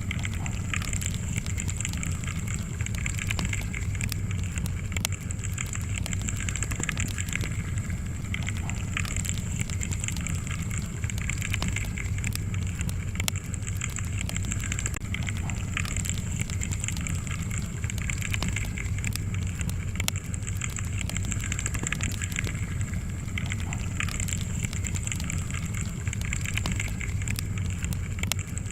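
Wood fire crackling steadily, with frequent small sharp pops over a low rumble of flames.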